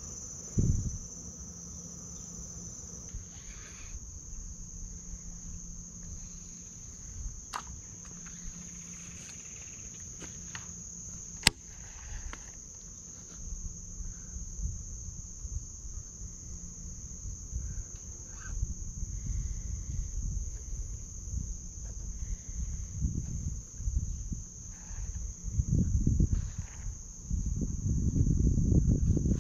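A chorus of insects making a steady, high-pitched drone. A sharp click comes about eleven seconds in, and a low rumble on the microphone grows louder over the last few seconds and becomes the loudest sound.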